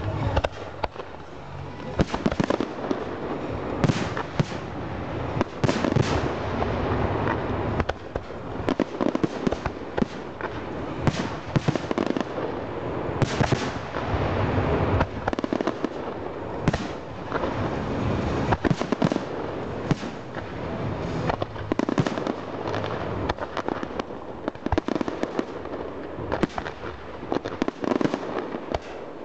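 Fireworks: aerial shells bursting in quick succession, many sharp bangs over a continuous crackle.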